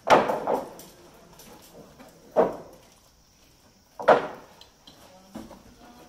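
Three loud knocks about two seconds apart, each with a short ringing tail, then a fainter knock near the end.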